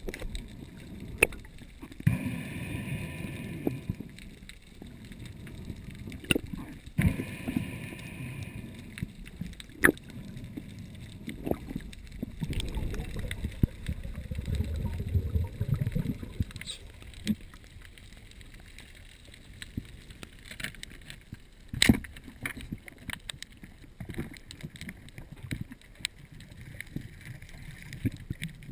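Underwater sound picked up through a camera housing during a freedive: muffled water rush and bubbling from the diver's finning, swelling and fading, with scattered clicks and knocks; the sharpest knock comes about three-quarters of the way through.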